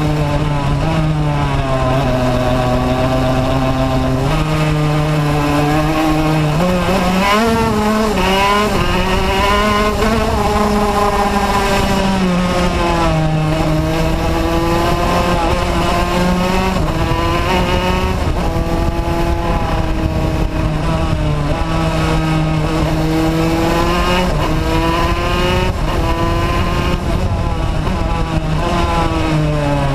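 Racing kart engine heard from onboard, running hard through the whole run, its pitch climbing and falling repeatedly as the kart accelerates and slows for the bends, with a few sudden drops in pitch, over a steady rush of wind and road noise.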